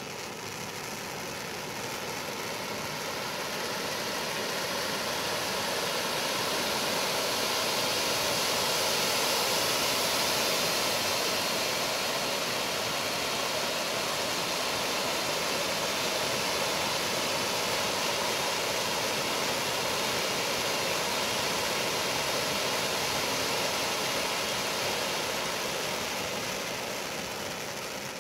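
Two silver firework fountains burning side by side, a steady rushing hiss of sparks. It builds over the first several seconds, holds level, and tapers off near the end as the fountains burn down.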